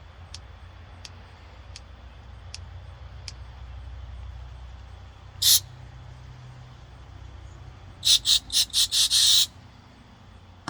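Short bursts of pressurized refrigerant hissing out of a can tap on an AC recharge can: one burst about halfway through, then four quick spurts and a longer hiss near the end. A faint high tick repeats about every three quarters of a second in the first few seconds.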